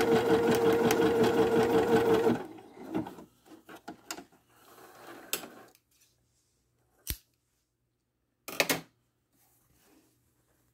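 Viking Jade 20 computerized sewing machine running steadily while sewing a zigzag stitch at its longest stitch length and widest width, stopping about two seconds in. Then come soft handling noises as the fabric is pulled free, a single sharp click in the middle and a short rustle after it.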